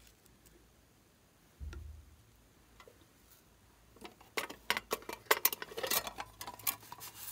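A tiger-shaped tin box being handled and opened: its metal body and lid give a quick, irregular run of sharp clicks and taps, starting about four seconds in. Before that there are only a few faint ticks and one soft thump.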